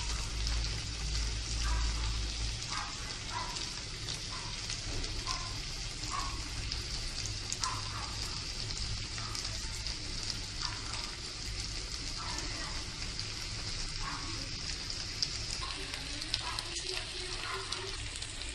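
Spiced chicken sizzling steadily in oil and butter in a pan while crumbled boiled potato is added, with small faint taps now and then.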